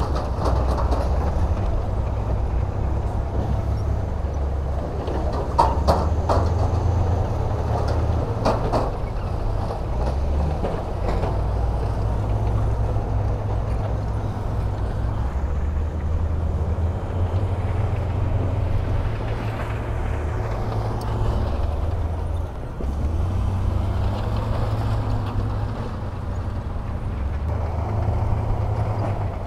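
Heavy diesel earthmoving machinery, wheel loader and dump trucks, running with a low engine rumble that rises and falls as they work. There are a few sharp knocks and clanks between about five and nine seconds in.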